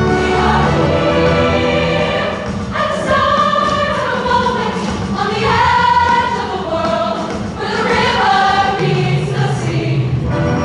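Women's show choir singing in full voice, many voices holding and shifting chords together, with a band playing steady low notes underneath.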